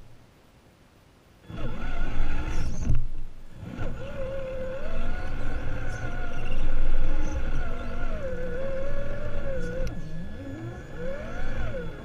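Traxxas Summit RC monster truck's electric motor and geared drivetrain whining as it drives over paving stones, with the pitch rising and falling as the throttle changes, over a rumble from the tyres and chassis. It is quiet for the first second or so, then starts moving.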